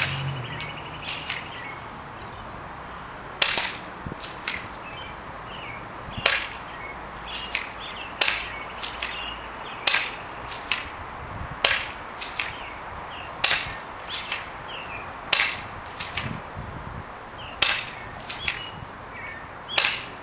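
A spring-powered airsoft Desert Eagle .44 Magnum replica pistol is fired about ten times, roughly one shot every two seconds, each a sharp snap. Softer clicks follow each shot as the pistol is cocked by hand for the next one.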